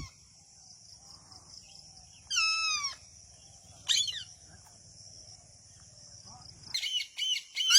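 Ringneck parakeet calling: a squeaky call falling in pitch about two seconds in, a shorter one about a second later, then a quick run of chattering calls near the end.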